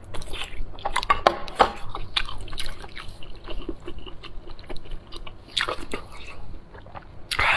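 Wet chewing and mouth sounds of someone eating sea snail meat, with irregular small clicks and smacks.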